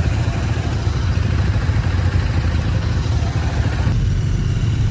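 Motorcycle engines of a group of bikes running at low speed, a steady low rumble, with the rider's own Royal Enfield Interceptor 650 parallel-twin among them. The sound changes abruptly about four seconds in.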